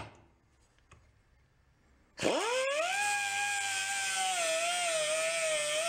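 A click, then about two seconds in a small air cut-off tool spins up with a quickly rising whine and hiss of air. It runs on at a steady high whine while its thin abrasive wheel cuts a steel screw to length, the pitch dipping slightly as the wheel bites.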